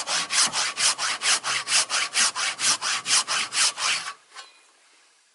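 A hand saw cutting through a wooden board in quick, even rasping strokes, about four a second. The sawing stops suddenly about four seconds in, followed by a faint knock.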